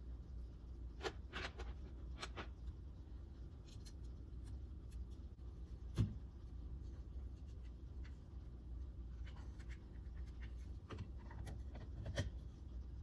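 Scattered light clicks and knocks of small metal parts and hand tools being handled while fitting a steering wheel assembly, with one sharper knock about six seconds in, over a low steady hum.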